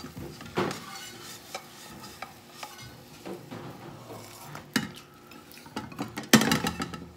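Omelets sizzling in frying pans while metal spatulas scrape and the pans knock against the stove, with a louder clatter of pans near the end.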